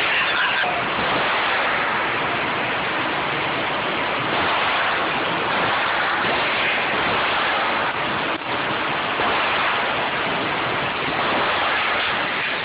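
Steady, loud rushing noise, even throughout, with no distinct gunshots standing out; it dips briefly about eight seconds in.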